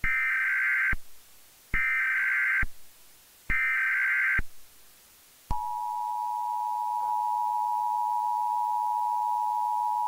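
Emergency Alert System header tones: three short bursts of warbling data tones, each just under a second with short gaps between. About halfway through, the steady two-tone EAS attention signal begins and holds.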